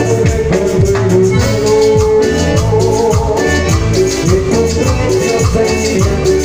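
Live cumbia band playing: button accordion, electric bass and keyboard over a fast, steady percussion rhythm.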